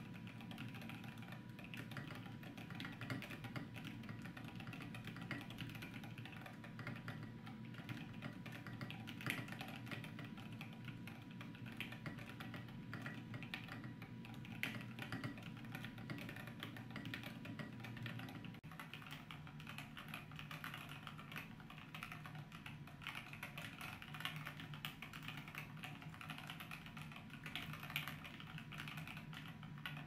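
Continuous fast typing on a Thermal 60% hotswap mechanical keyboard with an aluminium plate: a dense, unbroken stream of keystrokes.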